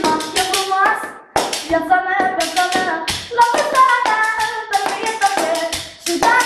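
A boy singing an ornamented manele melody with wavering, bending notes, unaccompanied except for his own sharp, regular hand claps keeping the beat. The singing breaks off briefly about a second in and again near the end.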